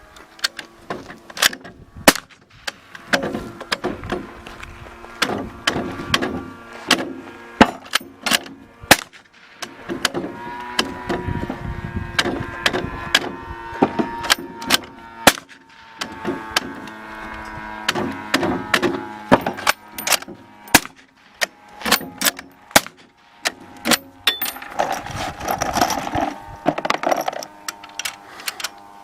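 A long string of sharp shots from a suppressed firearm being test-fired, roughly one to two a second at an uneven pace.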